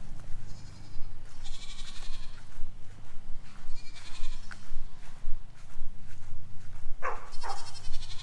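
Nigerian Dwarf goats bleating, with two short bleats close together near the end.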